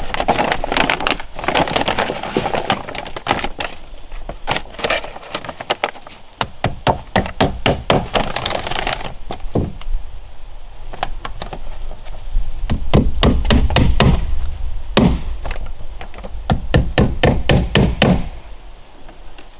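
A sheet of heavy kraft paper crinkling and rustling as it is pressed against a plank wall. It is broken by runs of quick sharp taps on the wood, about three a second, as the paper is tacked to the boards, with a dull low thudding under the taps in the second half.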